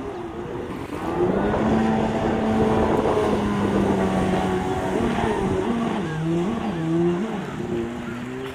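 1996 Tiger Shark Daytona 770 personal watercraft's two-stroke engine running at speed as the craft passes by. The steady engine note grows louder about a second in, its pitch wavers up and down a few times in the second half, and it fades a little near the end as the craft moves away.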